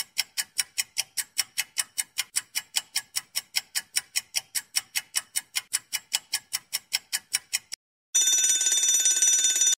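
Quiz countdown-timer sound effect: a clock ticking fast and evenly, about four or five ticks a second, stops near the end. A few tenths of a second later a rapidly trilling bell starts ringing, the time-up signal.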